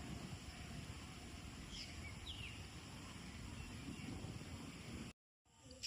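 Faint outdoor rural ambience: a steady low rumble, like wind on the microphone, with a few short bird chirps about two seconds in. The sound drops out briefly near the end.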